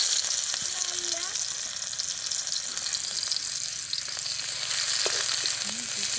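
Chopped garlic dropped into hot oil in a steel kadai, starting with a sudden loud sizzle that then runs on steadily as it is stirred with a metal spatula.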